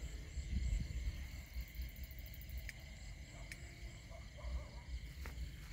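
Faint steady chirring of night insects, heard as a few high unbroken tones, over a low rumble from the handheld phone moving, with a few light clicks.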